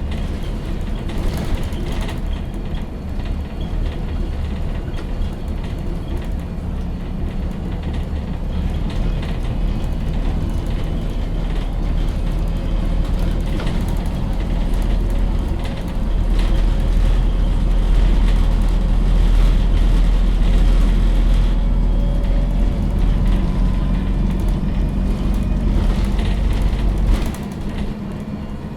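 MAN NG 313 CNG articulated city bus on the move, heard from on board: the natural-gas engine drones steadily under road noise. It grows louder about halfway through, then drops off sharply near the end.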